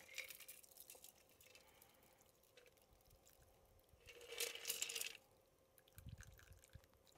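A shaken cocktail is poured from a stainless shaker tin through a fine-mesh strainer into a coupe glass. It makes a faint trickle of liquid with small clicks, and a louder burst of pouring about four seconds in.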